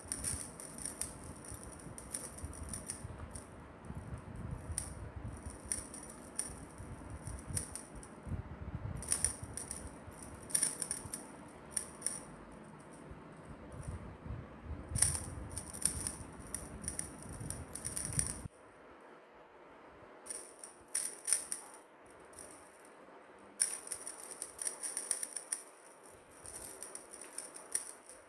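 A feather wand cat toy rattling in irregular bursts as it is shaken and batted by a kitten.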